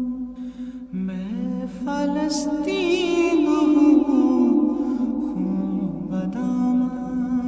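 Nasheed sung a cappella in Kashmiri: a solo voice enters about a second in and sings a wavering, ornamented line over a steady background vocal drone, with no instruments.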